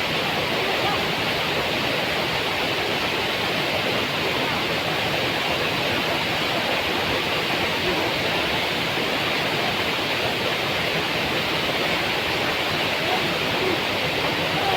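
A waterfall's water rushing steadily, a constant loud hiss that does not change.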